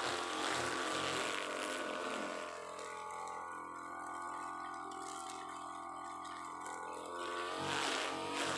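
UM328 brush cutter engine running fast while its 3 mm nylon line whips through tough grass down to the soil. About two and a half seconds in, the cutting noise drops away and the engine runs steadier and quieter. Near the end the cutting picks up again.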